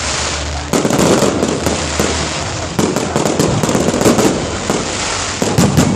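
Fireworks going off in rapid succession: a dense run of bangs and crackling, with a cluster of louder bangs near the end.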